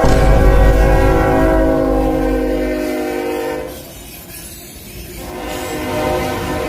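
Freight locomotive horn sounding a steady chord, breaking off about four seconds in and starting again about a second and a half later. A low rumble from the passing train lies under the first few seconds.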